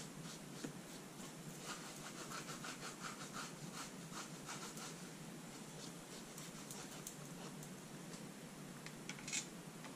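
Faint, soft scratching and light ticking as loose gilding flakes are brushed off a die-cut card panel into a plastic tub, with a slightly louder rustle near the end.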